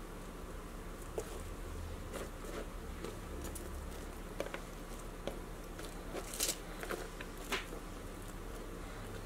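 Red onion slices being pulled apart into rings by hand on a cutting board: scattered faint crisp crackles and light taps, a couple of them sharper.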